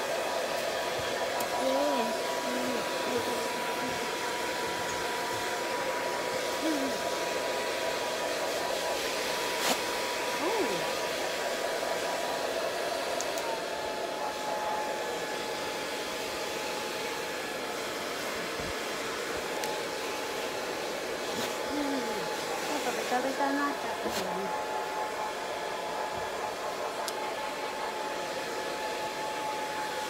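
Handheld hair dryer blowing steadily as it dries a dog's coat; its whine drops slightly in pitch about halfway through.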